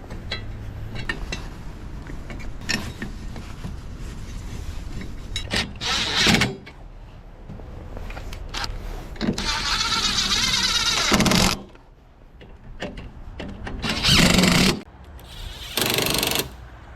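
Cordless impact driver working on bolts, running in four bursts: a short one about six seconds in, a longer one of about two seconds around ten seconds in, and two short ones near the end. Tool and metal clicks come in between.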